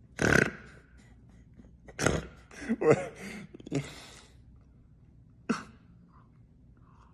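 A man laughing in several short breathy bursts over the first four seconds, then one short sharp burst near the end.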